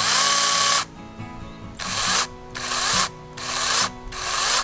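Kebtek 16.8 V cordless handheld chainsaw run in short trigger bursts with no wood in the cut: five separate runs of half a second to a second each. The first opens with a brief rising whine as the motor spins up. Background music plays underneath.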